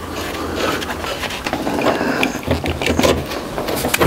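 Clicking and rattling of metal parts as an old central heating circulator pump is worked off its brass pipe unions by gloved hands.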